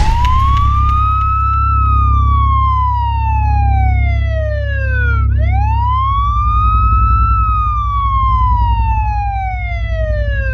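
Ambulance siren wailing: one tone rises over about two seconds, falls slowly over about three, then rises and falls again. Underneath is a steady low hum that turns to a pulsing throb about halfway through.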